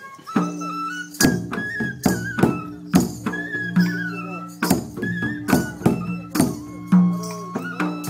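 Traditional Bengali folk music: a double-headed barrel drum beaten in a steady rhythm of about two strokes a second, under a high wavering melody and a low steady drone.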